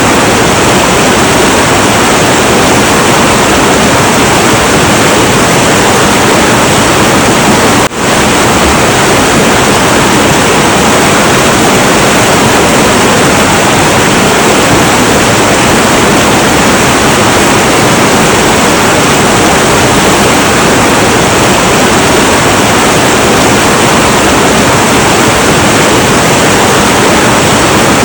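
Heavy, turbulent river water rushing in a loud, steady roar, with one momentary drop in level about eight seconds in.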